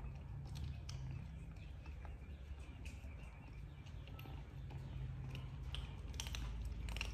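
Kittens crunching dry kibble: small irregular crunches and clicks, with a quick cluster near the end, over a low steady background hum.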